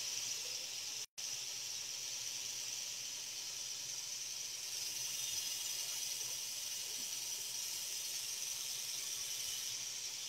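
Steady high-pitched hiss of background noise, cutting out for an instant about a second in.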